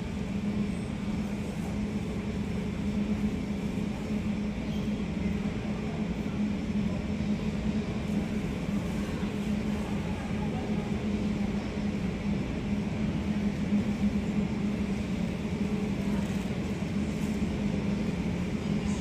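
Steady low mechanical drone with an unchanging low hum, growing slightly louder near the end.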